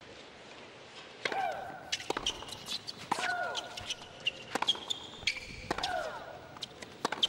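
Tennis rally with sharp racket-on-ball strikes. On three of the shots, about two seconds apart, comes Maria Sharapova's long shriek, falling in pitch.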